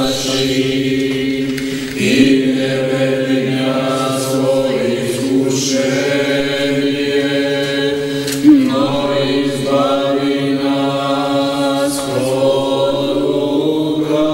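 Orthodox-style choral chant: voices singing a slow melody over a low drone note held throughout.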